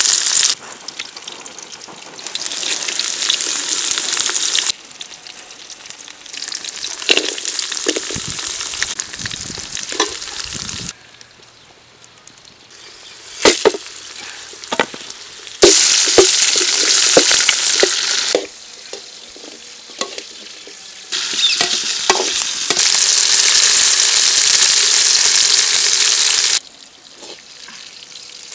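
Small onions, red chillies and garlic sizzling as they fry in hot oil in a metal pan. The loud sizzle stops and starts abruptly several times. Sharp knocks and scrapes of a metal ladle against the pan come between the loud stretches.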